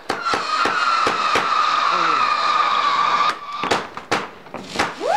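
Bright Star 'Zombies from Hell' firework shots going off: a steady high whistle with crackling for about three seconds, then sharp bangs and more whistles that rise quickly and then hold their pitch near the end.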